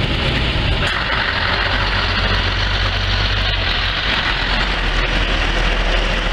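Scania 164L 480 truck's V8 diesel engine running steadily at low revs as the truck passes close by, with tyre and road noise.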